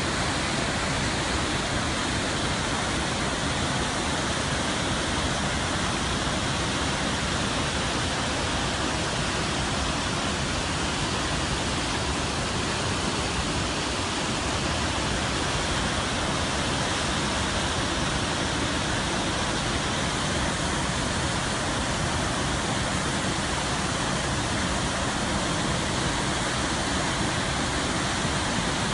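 Waterfall, a steady rush of falling water with no change in level.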